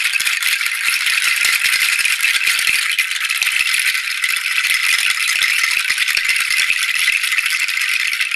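Beaded 'inside-out' shaker, its beads strung on the outside, shaken continuously in a dense, steady rattle. It is played as a sound effect to imitate a waterfall.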